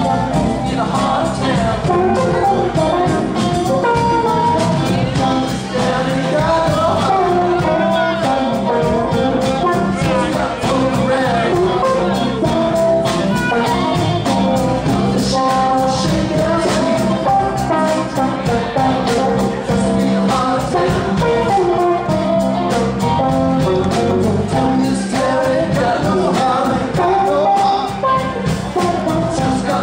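Live rock band playing: electric guitars, bass guitar and drums, with a man singing into a microphone. Loud and continuous throughout.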